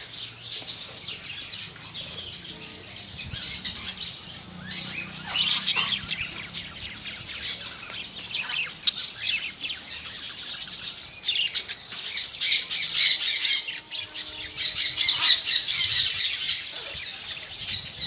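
Many birds chirping and squawking over one another in a dense, high-pitched chatter that grows louder in the second half.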